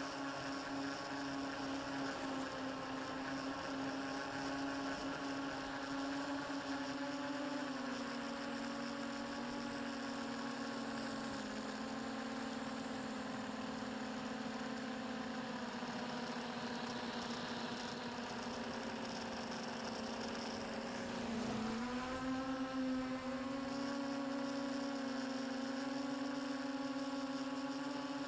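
Multirotor drone's electric motors and propellers whining steadily, one pitched hum that steps down in pitch about eight and eleven seconds in and climbs back up about twenty-two seconds in as the motors change speed.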